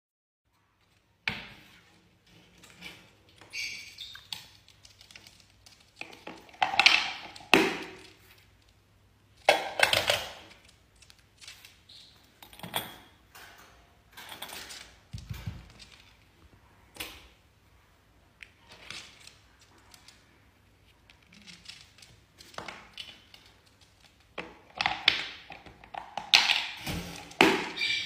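A lovebird knocking about on a tabletop among a metal toy and a wire cage: irregular taps, clicks and clattering knocks, with a few louder clusters of clatter.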